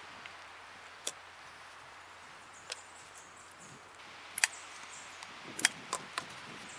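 Scattered sharp clicks and taps from handling a riflescope and a screwdriver while mounting the scope on a rifle, the loudest a little past halfway. They sit over a steady faint hiss of outdoor background.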